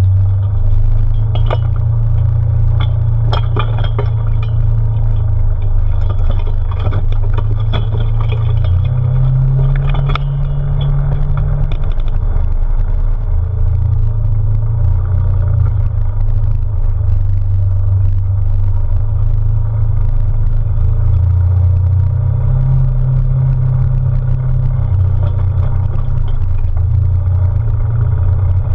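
A Polaris RZR side-by-side running down a dirt trail, its engine a steady low drone that rises and falls in pitch with the throttle. Clattering knocks and rattles come over roughly the first ten seconds.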